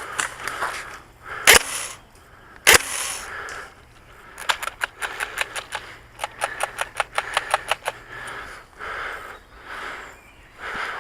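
Airsoft guns firing: two sharp single shots about a second apart, then a rapid string of about twenty shots at roughly six a second, broken by a short pause.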